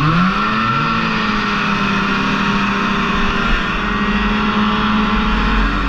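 Snowmobile engine revving up hard off the race start, its pitch rising quickly over the first half second, then held steady at high revs.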